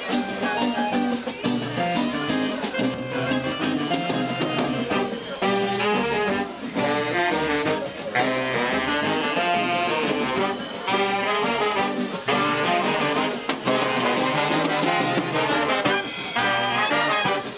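Big band of saxophones, trumpets and trombone playing a jazz number, with brass riffs over a steady rhythm.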